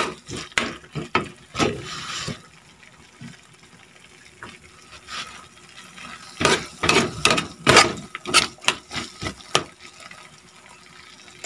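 Metal spatula stirring and scraping a wet mixture of corned beef and diced potatoes in a frying pan: two bouts of quick strokes, one at the start and one from about six and a half seconds in, with a quieter stretch between.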